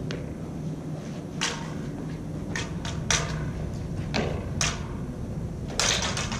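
Combat lightsaber blades clashing during a duel: a string of sharp, irregularly spaced clacks, with a quick flurry of several hits near the end, echoing off bare concrete walls.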